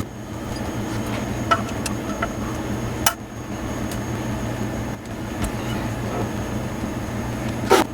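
A few sharp metallic taps and clicks of hand tools on an engine cylinder head while valve stem seals are fitted, over a steady low hum.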